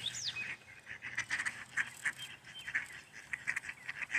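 Agitated ducks calling in a quick series of short notes while the drakes squabble over the paired females. A few high, falling bird chirps sound just after the start.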